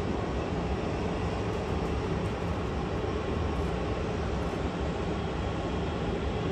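Jet engines of taxiing airliners running steadily: a continuous, even roar with a deep rumble underneath.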